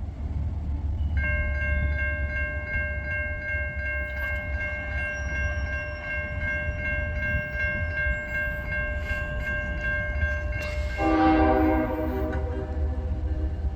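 Train horn sounding one long, steady chord of several notes over the low rumble of a passing train. About eleven seconds in, the horn briefly changes to a lower chord.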